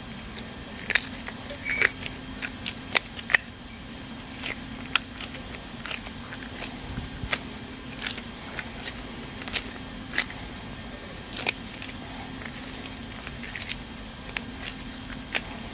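Scattered light clicks and taps from gloved hands handling a rocket motor propellant grain and parts on a workbench, at irregular intervals, over a steady low hum.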